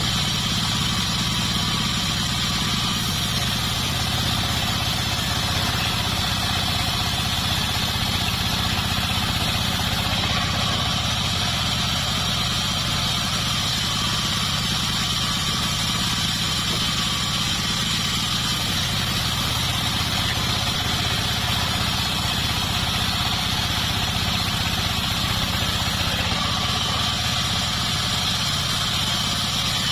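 Band sawmill running steadily: a low engine-like drone under a steady high whine.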